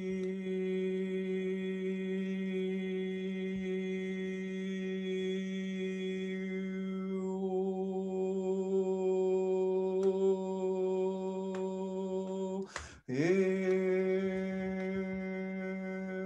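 A man's voice toning one long, steady-pitched note. About seven seconds in the vowel closes towards a hum. Just before thirteen seconds in there is a quick break for breath, and the voice slides back up into the same note.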